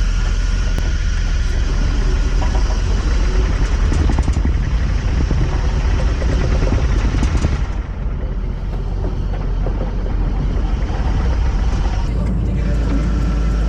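A machine engine running steadily with a strong low rumble; the higher, noisier part of the sound eases off about eight seconds in.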